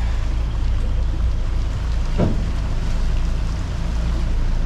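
A catamaran's engine running steadily under a constant rush of wind. A short rising squeak comes about two seconds in.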